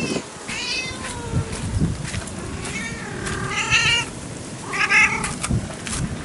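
A domestic cat meowing about four times, the calls bending in pitch, over a low rumble of wind.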